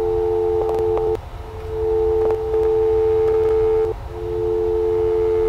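Loud steady electronic drone of two close tones with faint overtones, breaking off briefly about a second in and again near four seconds, with a few faint clicks. It is the noise that stands in for the missing audio of night-vision camera footage.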